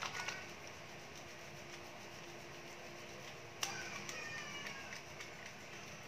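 Soapy hands rubbing together over a sink while lathering: faint wet rubbing over a steady low hum. A brief high squeak, falling in pitch, comes about three and a half seconds in.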